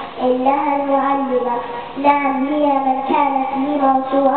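A young girl chanting a text in a melodic voice, in about three long phrases of drawn-out, held notes with short breaks between them.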